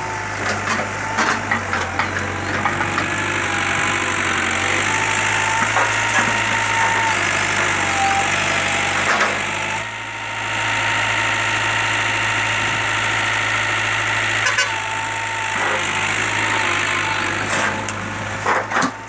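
Backhoe loader engine running steadily, with a low hum and occasional knocks and clanks.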